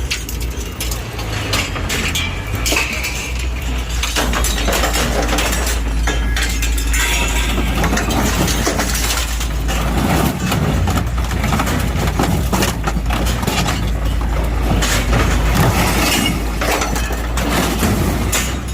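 Excavator's hydraulic cutting shear crushing and tearing a truck cab: continuous crunching of sheet metal and breaking glass with many sharp cracks, over the excavator's engine running steadily.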